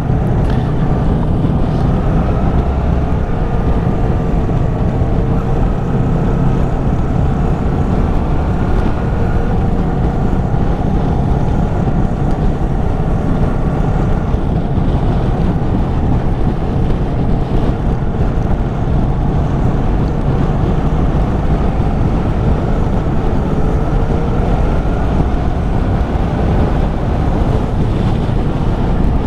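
Motorcycle engine running under way, its pitch drifting gently up and down with the revs, over a steady rumble of wind and road noise.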